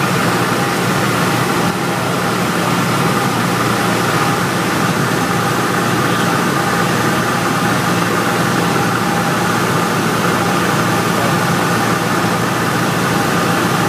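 Cessna 172's piston engine and propeller droning steadily, heard inside the cabin on approach to landing.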